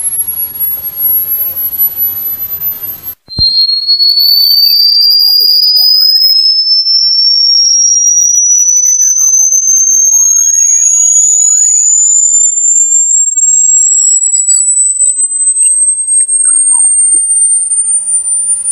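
Electronic rat-repellent tone: a loud, high-pitched pure whistle. It breaks off briefly about three seconds in, then starts again lower and glides slowly and steadily upward in pitch for the rest.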